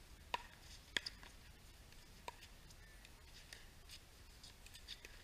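A pickleball rally: hard paddles strike the plastic ball with sharp pops. There are three clear hits in the first couple of seconds, the loudest about a second in, then fainter clicks from further down the court.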